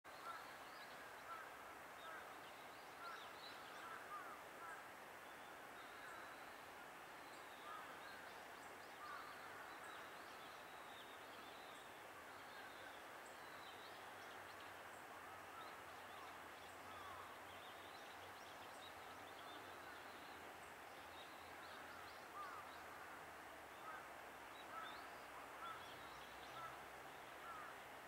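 Faint outdoor ambience: many short, distant bird chirps and calls scattered throughout over a steady hiss.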